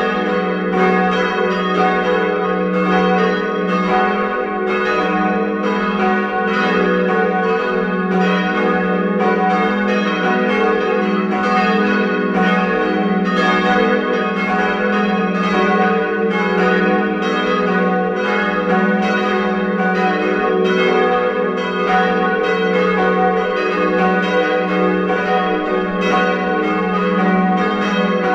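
Full peal of four church bells tuned F♯–G♯–B–D♯ (fis¹–gis¹–h¹–dis²), cast in 1981 by Rudolf Perner of Passau, all ringing together. Strokes come thick and unbroken, their ringing tones overlapping in a steady wash.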